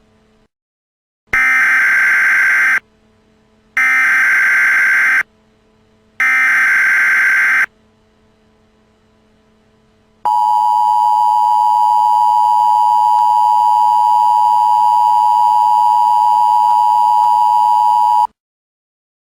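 Emergency Alert System data and tones. First come three short bursts of SAME header data, each a harsh digital warble about a second and a half long, with short gaps between them. About ten seconds in, the steady two-tone attention signal starts, holds for about eight seconds, and cuts off suddenly.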